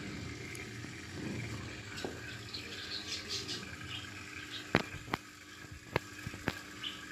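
Steady low water noise from an aquarium, like a filter's outflow trickling, with four sharp clicks in the second half.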